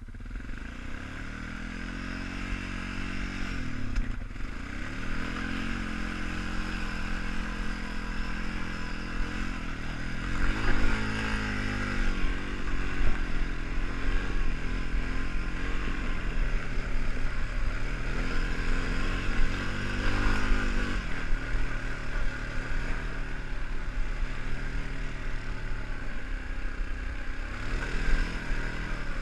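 ATV engine running under load through a steep, snowy climb, its pitch rising and falling several times as the throttle is worked.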